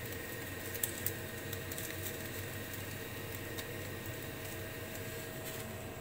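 Kitchen exhaust fan running with a steady hum, with a couple of light clicks about a second in.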